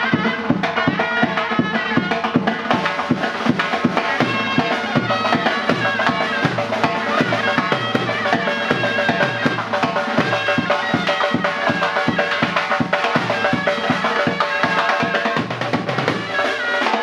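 Surnay, the Uzbek double-reed shawm, playing a melody with quick note changes over fast, steady drumming.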